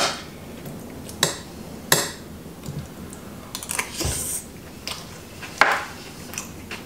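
Metal fork and spoon clinking and scraping against a plate while eating, several sharp clinks at uneven intervals with a longer scrape near the end.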